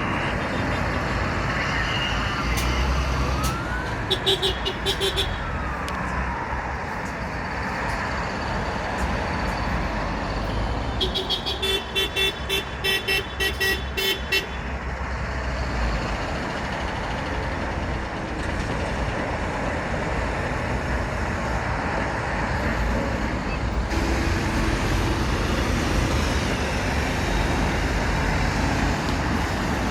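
Truck horns blown in quick rapid toots over the steady noise of passing traffic: one short run about four seconds in, a longer run of about eight toots from about eleven to fourteen seconds in. A siren wail rises and falls in the first few seconds, and a steady horn tone comes in about three quarters of the way through.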